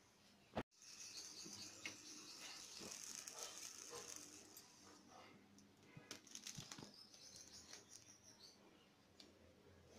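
Faint hiss and crackling of an eggplant's skin charring over a gas stove burner flame, with scattered light clicks later on.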